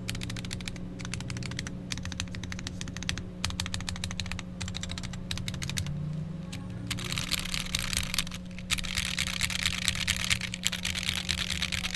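Typing on a Wooting 60HE hall-effect keyboard fitted with lubed and filmed Lekker L60 switches, a POM plate, PBT keycaps and no foam. Keys clack at a steady pace, then the typing turns faster and denser from about seven seconds in. A steady low hum runs underneath.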